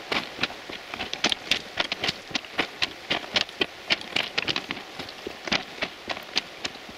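Footsteps crunching on railway track ballast stones at a brisk walk, an uneven run of sharp crunches several times a second.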